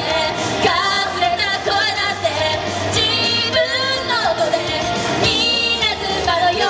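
Upbeat J-pop song with a girls' vocal group singing over the music.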